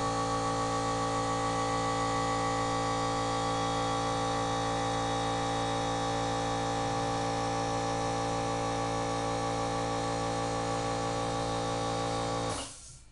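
Small 3-gallon oil-lubricated Craftsman air compressor running steadily as it refills its tank, then cutting off abruptly near the end.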